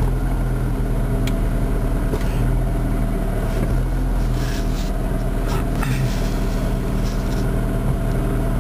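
Car engine idling with a manual gearbox in neutral and the clutch let out, giving a steady hum with a loose rattle. The owner puts the noise down to play in the gearbox shafts and bearings, not the clutch release bearing.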